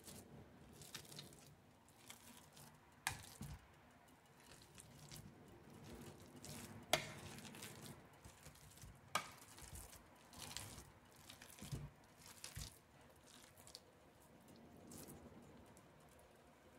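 Wire potato masher mashing cooked squash in a stainless steel pot: faint soft squishing, with a few sharp metallic clicks where the masher strikes the pot, the loudest about seven seconds in.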